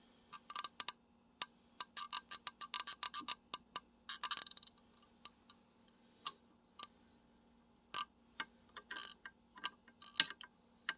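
Small metal clicks and taps of pliers working a stuck part on a Quadrajet carburetor, in quick runs with a dense flurry about two to four seconds in, then scattered single clicks.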